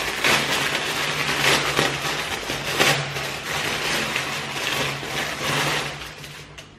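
Continuous rustling and crinkling of packaging, irregular and crackly, as a decorative pumpkin is pulled out of its bag or wrapping; it dies down near the end.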